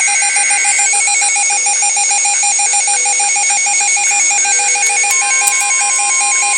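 Emergency alert tone for a tornado warning: a loud electronic alarm pulsing rapidly and evenly, with a second steady tone joining about five seconds in.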